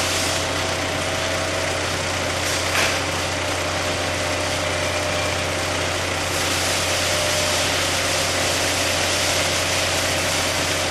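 Merging belt conveyor running: a steady motor hum with a faint constant tone above it, and one short click about three seconds in.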